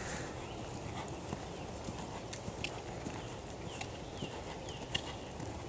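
Hoofbeats of a horse cantering on a sand arena, soft and muffled by the footing, over steady outdoor background noise.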